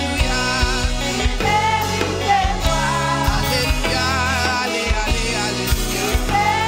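Live gospel worship song: a woman singing lead into a microphone in Haitian Creole, her voice wavering with vibrato, backed by a band with a steady beat and bass.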